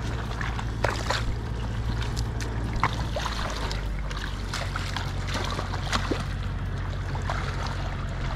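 Footsteps squelching and splashing through shallow muddy water in a flooded field, a string of short wet splashes, over a steady low hum.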